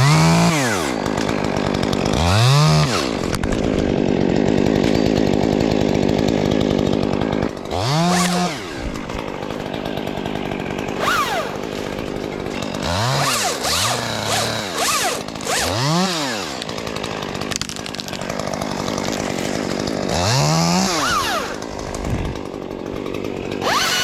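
Gas chainsaw working in a tree: it holds at high revs through one longer cut a few seconds in, then gives several short throttle bursts that rise in pitch and drop back to idle.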